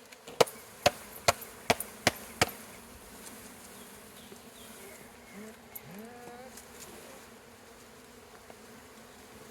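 Six sharp knocks in about two seconds as a wooden package of Italian honeybees is banged to shake the bees out into the hive, followed by the steady buzzing of the disturbed honeybees.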